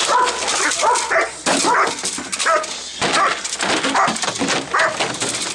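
German Shepherd barking repeatedly, about two barks a second, in agitation at a man with a stick while held back on a leash, as in protection training.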